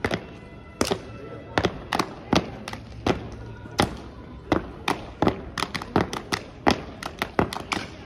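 Sharp claps, body slaps and heel stomps from a four-person unarmed exhibition drill team working through its routine. The strikes come roughly twice a second at first, then faster and more tightly packed in the second half.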